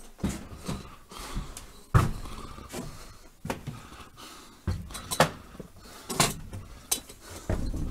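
An exterior door being opened, then footsteps and handling knocks as a person walks out onto a porch, with a sharp knock about two seconds in the loudest.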